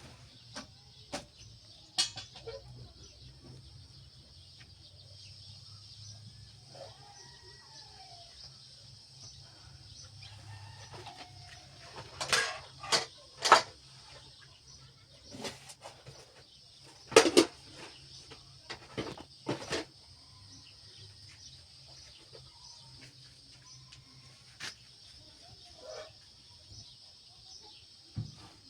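Scattered sharp knocks and clicks, loudest in two clusters about halfway through, with faint clucking of fowl in the background.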